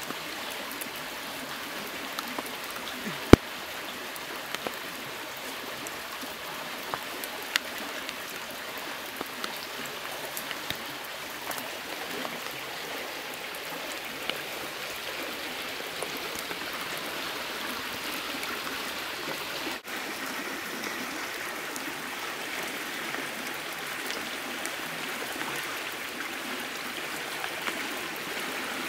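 Steady rushing background noise, like running water, with scattered sharp clicks and ticks. The loudest click comes about three seconds in, and the sound drops out for an instant about two-thirds of the way through.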